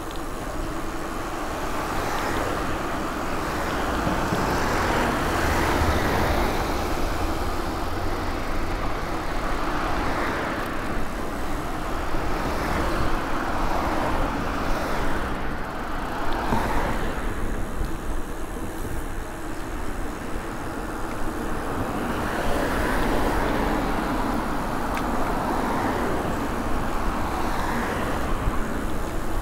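Road traffic: cars going by, their tyre and engine noise swelling and fading every few seconds.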